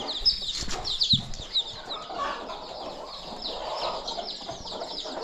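Chickens clucking, with many short high chirps throughout and a few sharp knocks in the first second.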